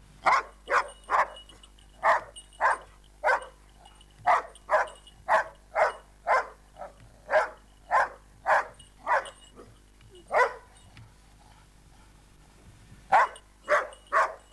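Dog barking at a rooster in quick, sharp barks, about two a second. The barks break off for a couple of seconds near the end, then start again.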